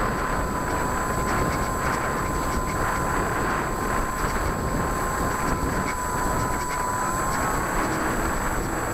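Onboard sound of a small RC airplane in flight: steady rushing of propeller and wind noise on the plane-mounted camera, with a thin steady whine that rises slightly and stops near the end.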